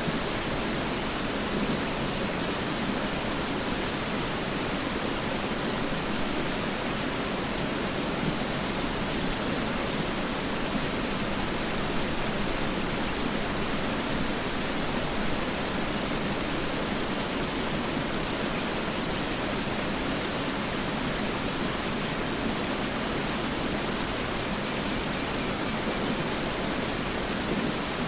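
Mountain river flowing: a steady, even rush of water over rocks that does not change.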